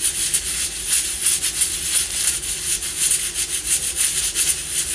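Wooden spatula scraping and stirring chopped onions frying in coconut oil in a pan, over a steady sizzle.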